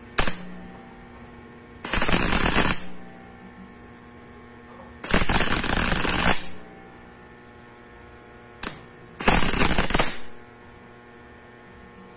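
MIG welding arc crackling in short spurts as tack welds are laid on thin steel sheet: three bursts of about a second each and two brief strikes. The welder is a small V8 MIG machine converted from gasless flux-core to solid wire with shielding gas. A steady electrical hum runs underneath.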